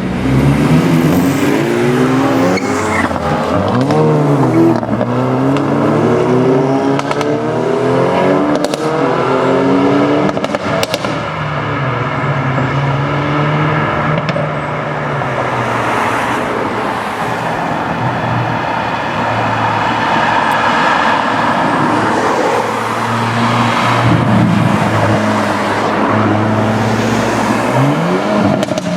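Hyundai i30N turbocharged 2.0-litre four-cylinder engines with sport exhausts, revved up and down again and again in the first ten seconds or so with a few sharp exhaust pops. The engine note then runs steadier before more revving near the end.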